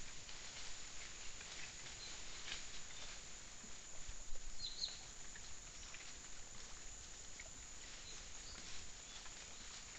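Peccaries rooting and shuffling through dry leaf litter: irregular crackles, rustles and soft ticks over the trail camera's steady hiss, with a couple of short high chirps about halfway through.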